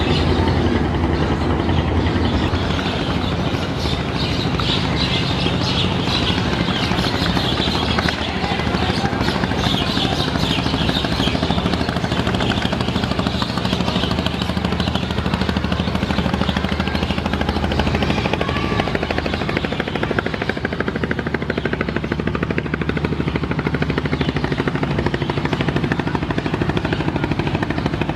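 Diesel engines of a river passenger launch running hard at speed: a steady low throbbing drone with a rushing hiss over it.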